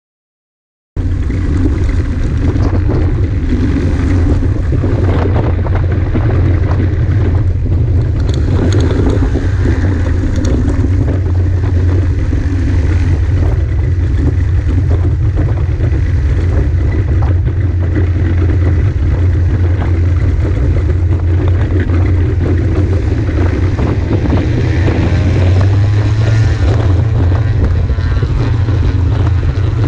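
Kolb Mark III light aircraft's 80 hp Rotax 912 UL flat-four engine and propeller running steadily as it rolls along a grass strip. The sound cuts in suddenly about a second in and grows slightly louder near the end.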